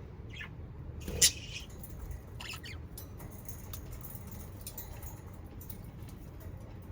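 Budgerigars giving a few short chirps and squawks, the loudest just after a second in, with light clicking and ticking between the calls.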